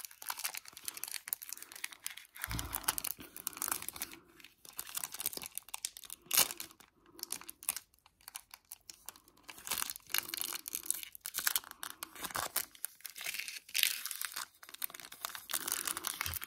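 Foil Pokémon Evolving Skies booster pack crinkling and rustling in the hands, in irregular crackly bursts, with a dull thud about two and a half seconds in.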